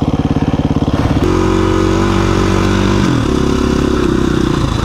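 Single-cylinder four-stroke engine of a KTM 350 EXC-F dirt bike, chugging at low revs for about a second, then holding a steadier, higher note for about two seconds before dropping lower about three seconds in.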